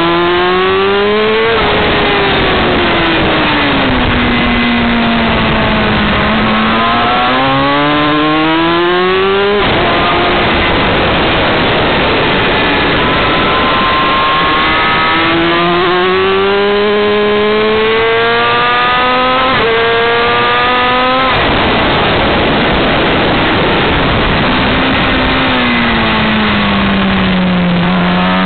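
Yamaha R6's inline-four engine revving up and down as the bike accelerates out of corners and slows for the next, its pitch rising and falling several times, under a steady rush of wind on the onboard microphone.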